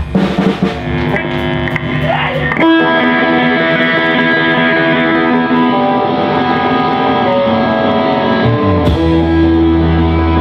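Live rock band playing loud, with the electric guitars holding long ringing chords. Drum hits come thick in the first two or three seconds, and near the end a cymbal crash marks a chord change.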